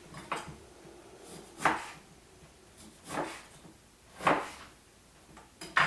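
Kitchen knife cutting down onto a wooden cutting board: five separate chops, a second or so apart, each a sharp knock.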